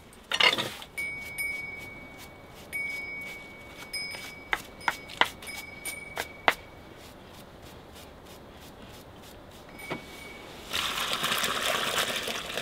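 Scattered sharp clicks and knocks, some with a light metallic ring. About eleven seconds in, a steady stream of liquid starts splashing and runs on.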